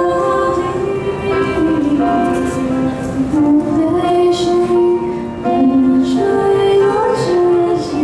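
Young women singing a slow, melodic song into hand-held microphones, holding each note for about a second before stepping to the next.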